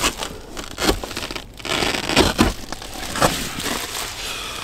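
Crinkly rustling of bedding and a sleeping bag as someone shifts about inside a car, with several sharp crackles and handling knocks.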